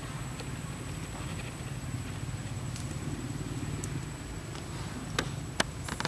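A steady low engine rumble, with a few sharp clicks near the end.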